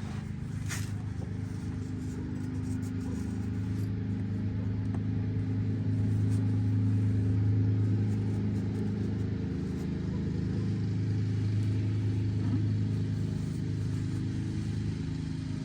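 A steady low machine hum, swelling slightly toward the middle of the stretch and easing back a little afterwards.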